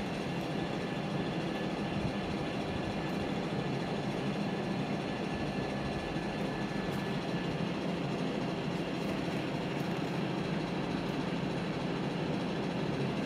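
A steady low drone of background noise, with faint crinkles from a paperboard food box being handled and opened.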